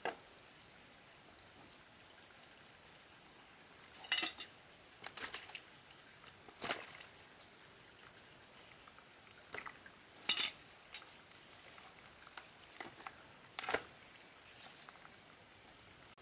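Cookware being handled: a handful of separate clinks and knocks of pots and utensils, spaced a few seconds apart.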